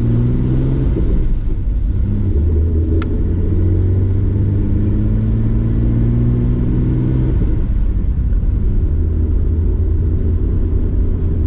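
Nissan Skyline R32 GT-R's RB26DETT straight-six, converted to a big single BorgWarner turbo, heard from inside the cabin while driving during a road tune. The engine note climbs slowly for several seconds, drops about seven and a half seconds in, then runs on steadily.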